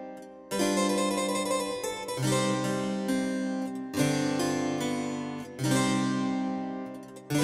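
Background music: keyboard chords, struck about every one and a half seconds, each ringing and fading before the next.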